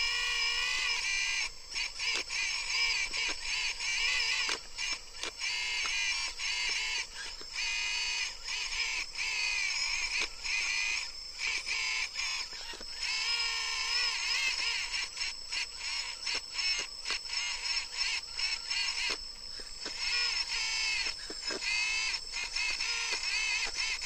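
Electric hydraulic pump of a 1/14 RC hydraulic excavator whining as the machine digs, its pitch wavering with the load and cutting out briefly many times as the controls move.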